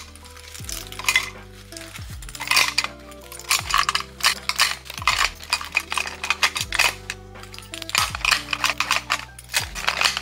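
Metal clasps and key rings on fabric key wristlets clinking and clicking as they are handled and dropped into a clear acrylic holder. Soft background music runs underneath, with a deep beat about every one and a half seconds.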